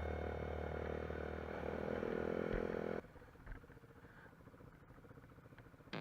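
Engine running steadily with a low hum for about three seconds, then cutting off abruptly to faint background sound.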